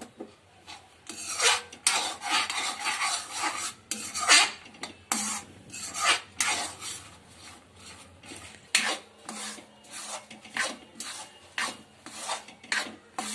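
Metal ladle scraping and knocking against a metal kadhai while stirring peanuts through thick melted jaggery, in irregular strokes about once or twice a second.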